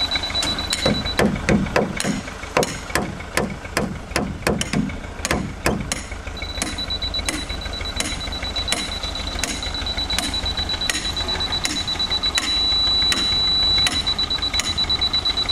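Hammer blows on a swimming-pool wall panel, a quick run of strikes in the first six seconds followed by lighter, evenly spaced taps. Over them a laser-level receiver on a grade rod beeps a high tone, which goes to a steady solid tone for about a second late on, the signal that the wall top is on grade.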